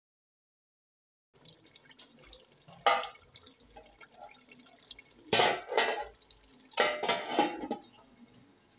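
Thick tomato stew bubbling in a large aluminium pot. It starts after a second and a half of silence as a faint crackling simmer, with several louder bubbling pops, single and in clusters, from about three to seven and a half seconds in.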